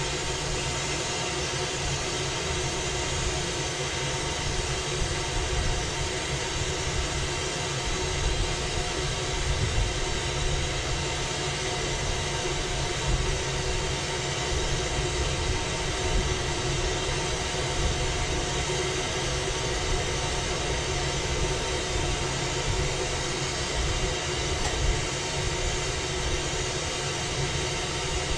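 Glassblowing bench torch burning steadily, a constant rushing noise with a rumbling low end and a faint steady hum beneath it.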